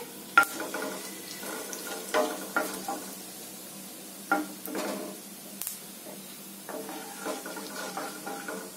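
Mustard and cumin seeds sizzling in hot oil in a kadai, crackling with a few sharp pops as they splutter. A wooden spatula stirs them through the pan.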